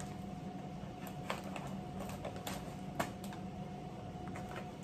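Stiff wrapping paper crinkling and rustling in the hands, with a few sharp light clicks, the clearest about three seconds in.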